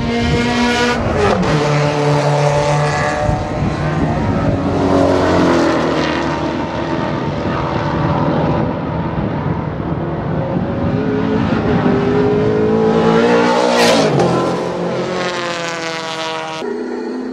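Two V8 touring cars, a Rover SD1 and a Holden VH Commodore, racing past, heard from trackside. Their engines rise and fall in pitch through gear changes and lifts for the corners, loudest as they pass close about fourteen seconds in, then fading.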